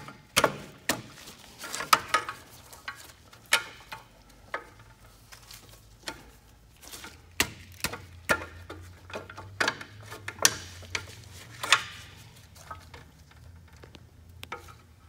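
A long steel screwdriver prying against an Eaton drum-brake shoe and its retaining spring hardware, making irregular sharp metal clicks, clinks and scrapes as the spring is worked loose. A low steady hum sits underneath.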